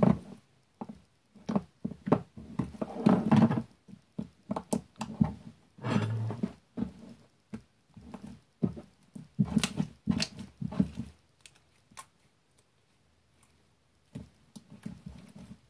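Soft, aged slime being squeezed and kneaded by hand, giving irregular wet squelches and small pops in bursts with short pauses; the slime has gone very soft from standing.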